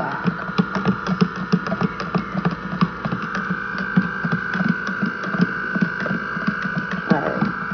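A plastic spoon stirring coffee in a paper cup, knocking and scraping against the cup's sides in quick, irregular clicks. A steady high-pitched hum runs underneath.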